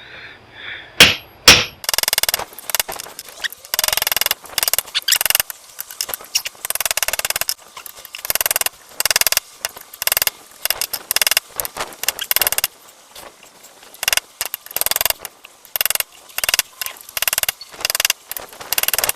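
Hammer driving a cold chisel into a welder's steel case, metal-on-metal strikes coming in fast runs with short pauses between them. Two single loud blows about a second in start it off.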